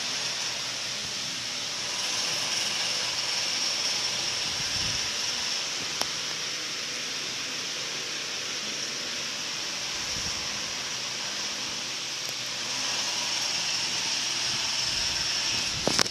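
Steady hiss of background noise, with a single sharp click about six seconds in.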